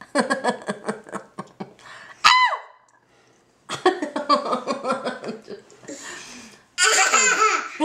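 A baby laughing in quick bursts, with a short, high squeal that drops in pitch about two seconds in and another loud, high-pitched squeal near the end.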